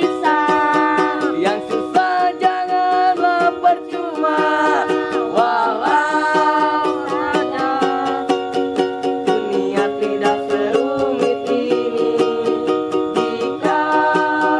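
Strummed acoustic string instrument keeping a steady rhythm under a held, gliding melody line: an instrumental passage of a song.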